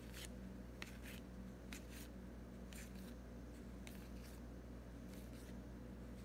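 Soft swishes of paper baseball cards sliding against each other as a stack is flipped through one card at a time, about a dozen at irregular intervals, over a faint steady low hum.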